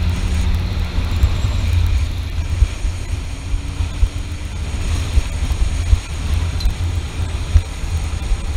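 Sea-Doo jet ski powering a Sealver Wave Boat 525 hull at speed: engine and rushing water heard under heavy, gusting wind buffeting on the microphone.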